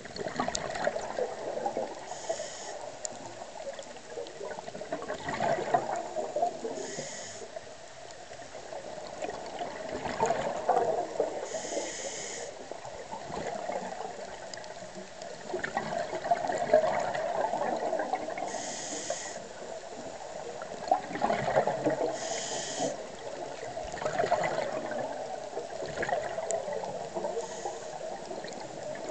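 A scuba diver breathing through a regulator underwater. Every few seconds there is a short hiss as they inhale, and between the hisses a long crackling rush of exhaled bubbles.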